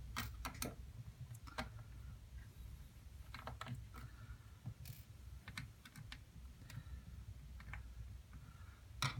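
Small irregular clicks and taps from hands and a tool working on a laptop's screen assembly, with a sharper click near the end.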